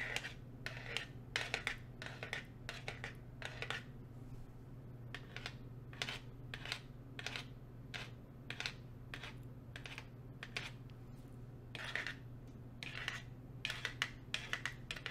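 Nail rings (fake fingernail tips) clicking and clacking against one another as fingers flutter close to the microphone, in quick, irregular clusters of sharp clicks.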